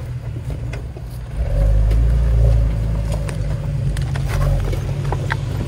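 Jeep Wrangler LJ's 4.0-litre straight-six engine running at low revs as the Jeep crawls over rocks, getting louder about a second and a half in as throttle is added. Scattered clicks and knocks from the tyres on the rock.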